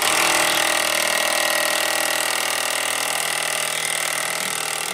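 A powered machine starts abruptly and runs steadily with a dense, even whine.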